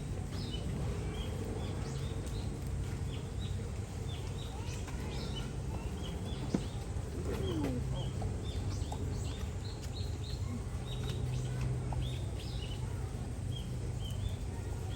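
Small birds chirping over and over, short high calls scattered through the whole stretch, over a steady low hum of background noise, with one sharp click about six and a half seconds in.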